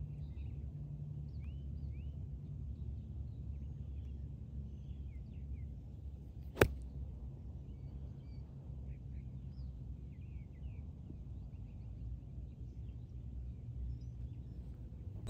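A golf wedge strikes the ball once out of the rough, a single sharp click about six and a half seconds in and the loudest sound. Faint bird chirps come and go over a low steady rumble.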